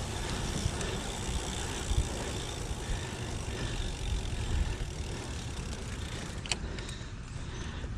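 Steady road and wind rumble from a recumbent trike rolling along a paved street, with a brief click about six and a half seconds in.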